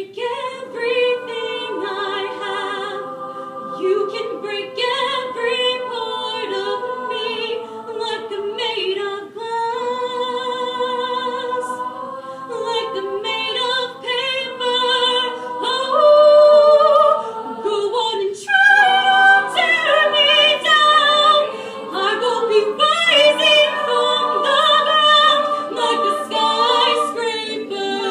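Women's a cappella group singing a pop ballad in close vocal harmony, with no instruments. The voices swell loudest about halfway through.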